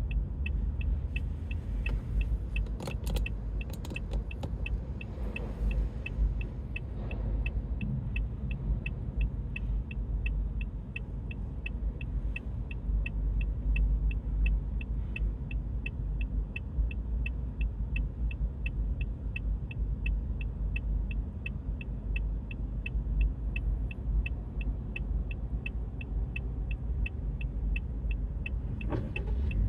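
Car being driven: a steady low rumble of engine and road noise inside the cabin, with a regular rapid ticking, about three ticks a second.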